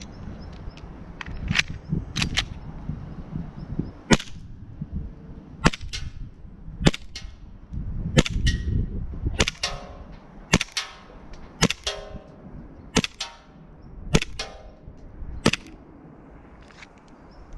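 WE Colt 1911 Nighthawk gas-blowback airsoft pistol being fired shot by shot, about a dozen sharp cracks a second or so apart, most followed by a second crack a fraction of a second later. A low rumble sits underneath in the first half.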